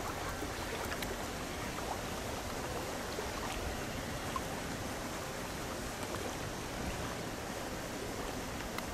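Steady wash of choppy water lapping and splashing, an even noise without any clear motor whine.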